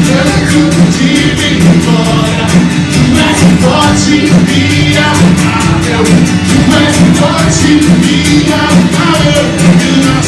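Brazilian gospel worship song playing: a full band with drums keeping a steady, fast beat over sustained bass, with some singing.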